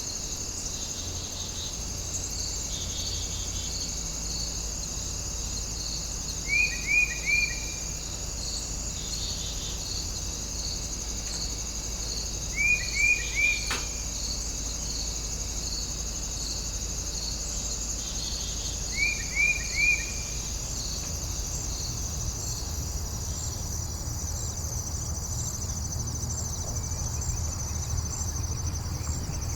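Steady high-pitched chorus of crickets. Three times, about six seconds apart, it is broken by a quick run of three short chirping calls, which are the loudest sounds.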